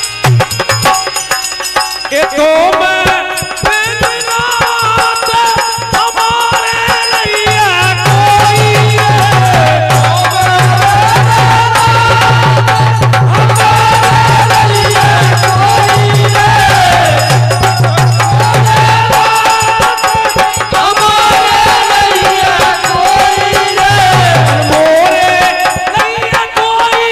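Live folk devotional bhajan music: a dholak drum and a jingling tambourine keep up a steady rhythm. A held, wavering melody line comes in over them about two and a half seconds in.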